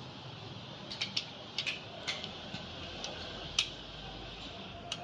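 Irregular light clicks and taps, about eight over a few seconds, over a steady background hiss.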